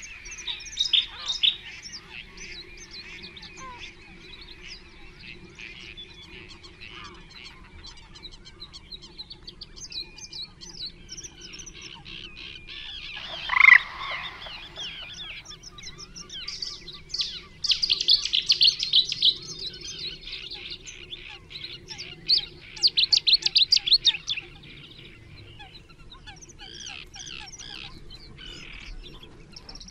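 Wild birds singing and chirping, with many small bird notes throughout. About halfway through comes one loud, harsh falling call, and later there are two bursts of rapid, high trilling.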